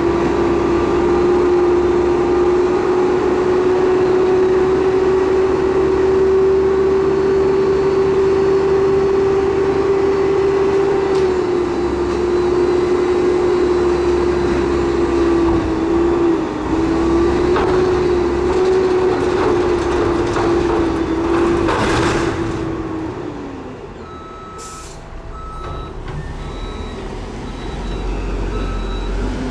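Mack MR front-loader garbage truck with a McNeilus Atlantic body, its engine held at raised revs to drive the hydraulics, with a steady whine while the forks hold a dumpster tipped over the cab. About three quarters through, the whine stops after a rush of noise, a short air hiss follows, and then the truck's backup alarm begins beeping about once a second.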